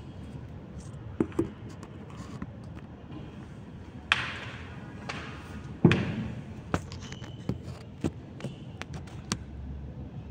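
Gusty wind rumbling, broken by irregular knocks and thumps, the two loudest about four and six seconds in, each followed by a brief rush of noise.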